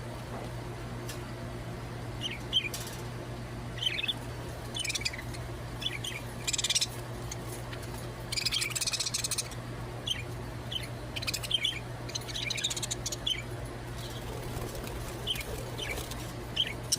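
Pet budgerigars chirping and chattering in short high calls, with a few longer spells of warbling chatter about a third and two thirds of the way through.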